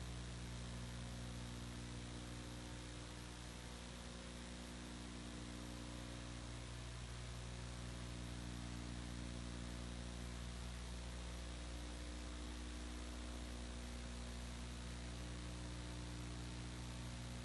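Steady electrical mains hum, a stack of low tones, under a constant even hiss, with nothing else over it.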